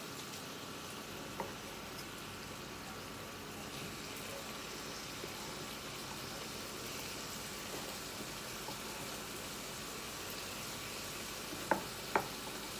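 Vegetables sizzling as they fry in oil in a frying pan while a wooden spatula stirs them. There is a single click about a second and a half in, and two sharp knocks of the spatula against the pan near the end.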